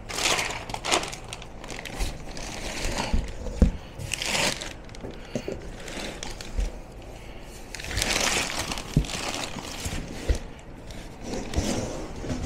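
Unpacking noise: foam packing inserts scraping against cardboard and the battery's plastic wrap rustling, in several swishes, with a few dull thumps as the heavy battery is shifted and lifted out of its box.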